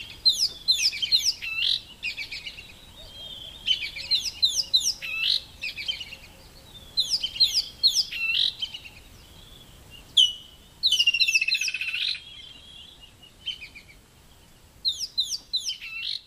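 High-pitched chirping calls in bursts of quick, sweeping notes, each burst lasting a second or two and recurring every few seconds, with quieter gaps between.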